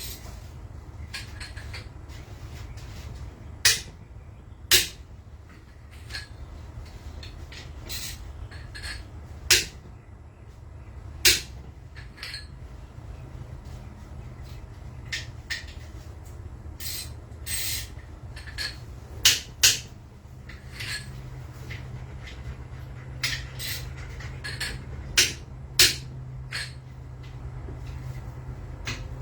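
Hand tools working on engine bolts: irregular sharp metallic clinks and knocks of sockets, a breaker bar and loosened bolts, a dozen or so loud ones a second or two apart, over a steady low rumble.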